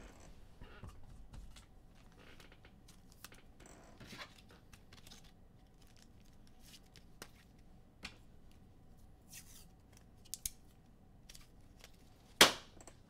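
Trading-card pack being opened by hand: scattered small clicks and scratchy rustles of the wrapper, with one loud sharp crack near the end.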